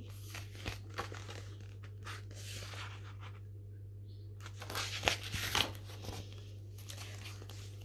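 Pages of a paperback picture book being handled and turned: a run of paper rustles and crinkles with small clicks, loudest about five seconds in.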